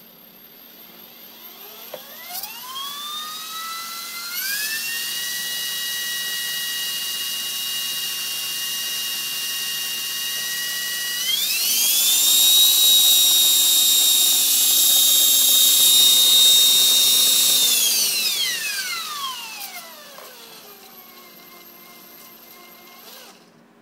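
Align T-Rex 450 electric RC helicopter's motor and drive gears whining as the bladeless rotor head spins up. The pitch rises over a couple of seconds and holds steady. It steps up to a higher, louder speed about halfway through, holds again, then winds down and falls away near the end.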